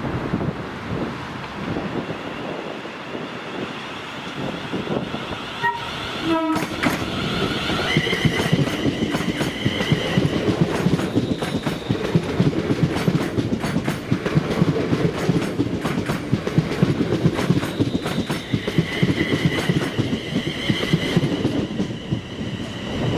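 ScotRail Class 380 electric multiple unit running past, its wheels clattering rapidly over the rails and growing louder after about seven seconds, with a steady high whine from about eight seconds in and again near the end.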